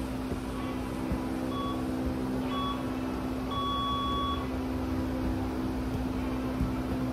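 Electronic timer beeping a countdown: three short beeps about a second apart, then one longer beep, signalling the start of the next drill interval. Underneath is a steady low hum, with a few soft taps of the football.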